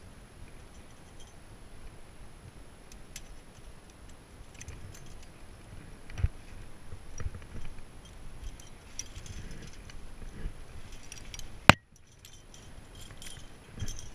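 Climbing hardware clinking and jangling: carabiners and trad protection knocking together on a harness rack as gear is cleaned from a crack, with scattered small metallic clicks and a few dull bumps. One sharp, loud click comes near the end.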